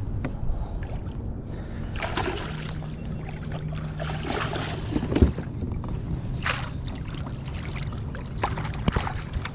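Water splashing and sloshing beside a kayak in a few short bursts, with a couple of sharp knocks, as a hooked bass is fought in to the boat.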